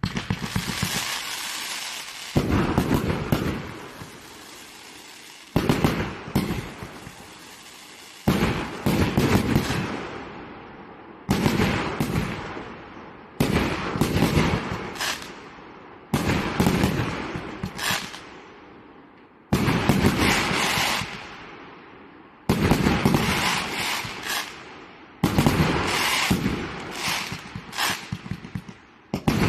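A pot-flower firework fountain going off in a series of crackling bursts. A new burst starts suddenly about every two to three seconds, and each fades before the next.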